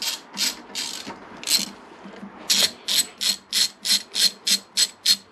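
Hand socket ratchet clicking in quick back-and-forth strokes as it runs a bolt down into a motorcycle's top yoke, with a short pause about two seconds in, then faster strokes, about three a second.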